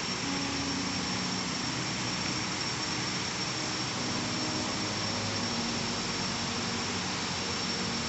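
Steady roar of a waterfall: an even, unbroken rush of falling water.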